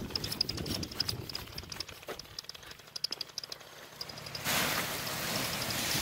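Crunching footsteps in snow, then a rush of rustling noise from about four and a half seconds in as the fabric of a paramotor wing sweeps over the microphone.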